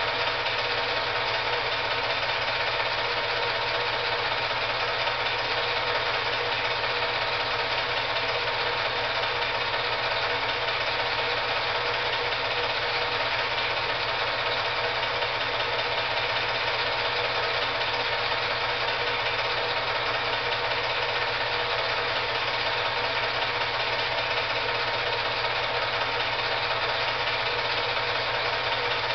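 Steady fast mechanical clatter of an 8 mm film projector running, with a low hum.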